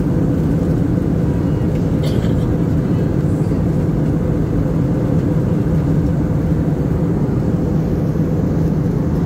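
Steady low cabin noise of a jet airliner in flight, the drone of the engines and airflow heard from a window seat during the descent. A faint click about two seconds in.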